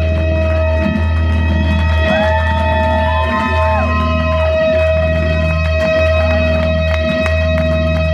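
Loud live rock band: electric guitar holding one long unbroken note over a steady low bass drone, with bent guitar notes sliding up and down over it in the first half.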